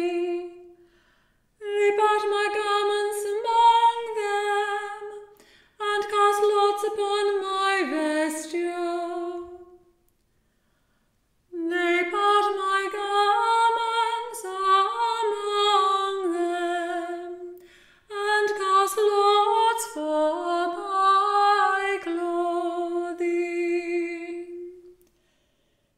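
Unaccompanied mixed choir chanting psalm verses in English, in four phrases with short breaks between them and a longer pause about ten seconds in.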